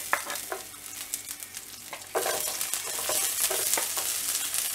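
Groundnut oil sizzling in a kadai as garlic and whole spices fry for a tadka, with a few sharp crackles. About two seconds in, the sizzle suddenly gets louder and denser as chopped onion is tipped into the hot oil.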